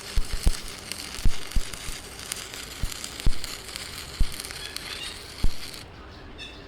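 Electric welding arc crackling and spitting, with irregular sharp pops, cutting off suddenly near the end.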